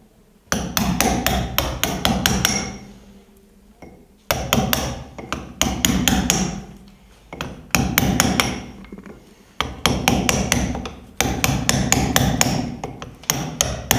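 Hand hammer striking a steel point chisel into a stone block, chipping stone in quick runs of sharp blows separated by short pauses, about six runs in all.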